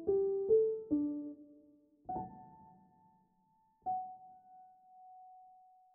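Background piano music: a falling run of single notes, a chord about two seconds in, then one last high note about four seconds in that rings and fades away.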